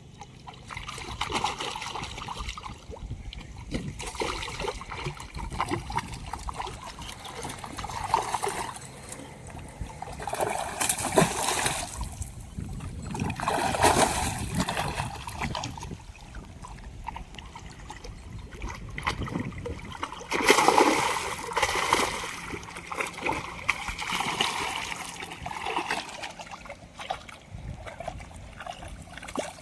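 Water splashing, sloshing and trickling in irregular surges, the loudest about eleven, fourteen and twenty-one seconds in.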